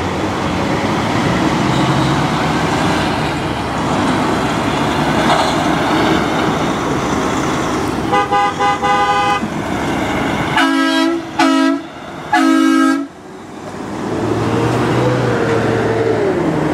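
Departing semi trucks' diesel engines rumble, then an air horn sounds about eight seconds in, followed by three loud blasts of a deep train-style horn. Near the end an engine revs up and eases off as a truck pulls away.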